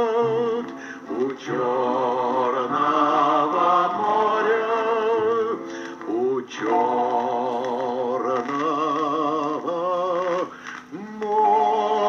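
A gramophone record of an old sung song playing through the Rekord-53 radiogram's own speaker: a wavering melody line with vibrato over accompaniment, with short breaks between phrases, in a thin range with no deep bass and no top.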